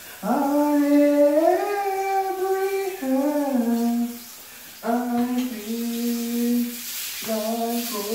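A man singing unaccompanied, holding long drawn-out notes with slides in pitch, in several phrases broken by short pauses.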